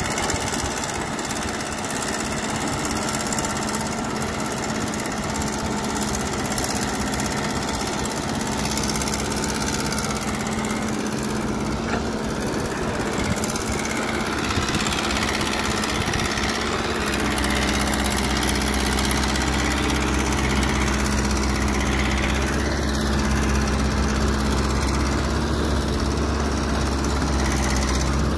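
Caterpillar E200B excavator's diesel engine running steadily as it digs and loads dirt into a dump truck. A deeper, louder hum comes in about two-thirds of the way through.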